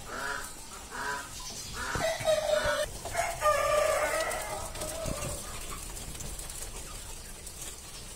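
Japanese quail calling: a few short calls in quick succession, then longer calls, dying away after about five seconds.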